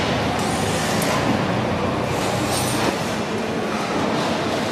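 Steady machinery running on a production line: a dense, even mechanical din with a few short hisses and a single click.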